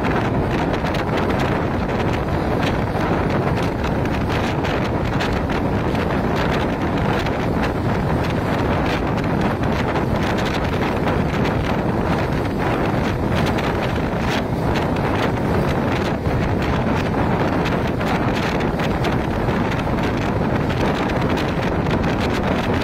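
Wind buffeting the microphone at the open door of a fast-moving passenger train, over the steady rumble of the coach running on the track.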